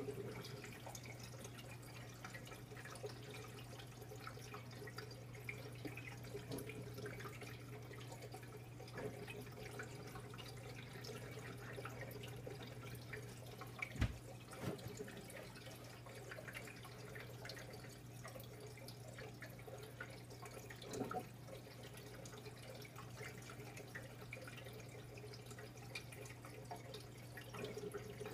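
Aquarium water trickling and dripping, with a steady low hum from the tank's pump. One sharp knock about halfway through.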